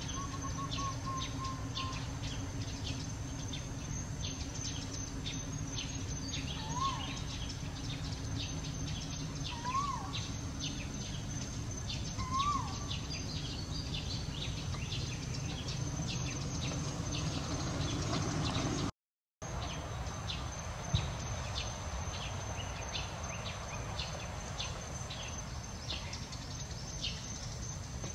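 Outdoor forest ambience: a steady high insect drone with many scattered chirps, and three short up-and-down calls about seven, ten and twelve seconds in, over low background rumble. The sound cuts out for a moment about two-thirds of the way through.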